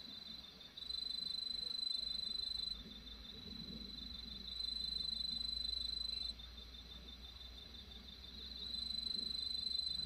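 Crickets trilling at night: one high, shrill trill comes in bursts about two seconds long, roughly every four seconds, over a second, fainter trill that pulses on without a break.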